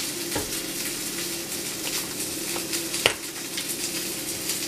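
Steady sizzling and crackling of food frying in a pan, with a sharp knock about three seconds in and a fainter one near the start.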